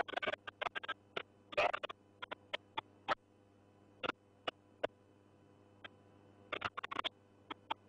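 Irregular sharp clicks and crackles, bunched at the start and again about two-thirds of the way through, with single ticks in between, over a faint steady hum.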